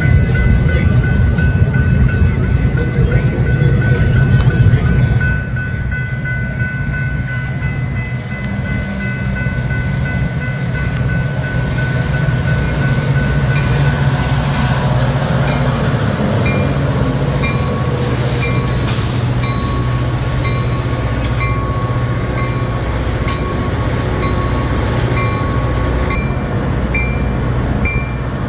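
A train passing on the line with a heavy, steady rumble, loudest in the first five seconds. Steady high tones sound over it at first. A regular ding comes about twice a second through the second half.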